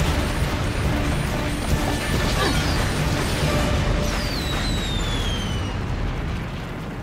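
Cartoon explosion sound effect: a long, loud blast with rumble and clattering debris, with falling whistles about four seconds in, dying away near the end.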